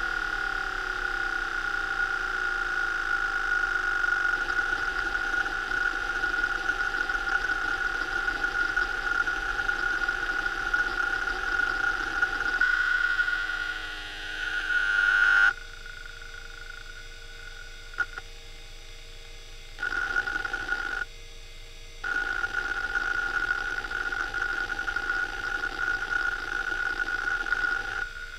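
Western Digital Caviar 21200 1.2 GB IDE hard drive seeking rapidly under a seek-time benchmark: a dense, steady buzzing chatter from the head actuator with a steady high tone. About halfway it shifts in pitch, then drops much quieter with a couple of single clicks, and the rapid seeking comes back in bursts.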